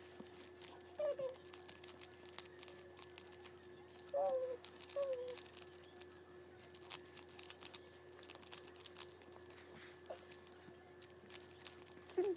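Mirror cube being turned by hand: a continuous run of quick plastic clicks and clacks as its layers are twisted. A few short vocal sounds come in about a second in and around four to five seconds in.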